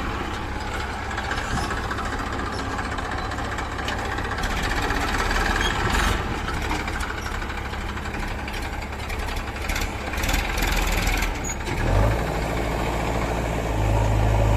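Vehicle engine running with a steady low hum, which becomes louder and steadier about twelve seconds in.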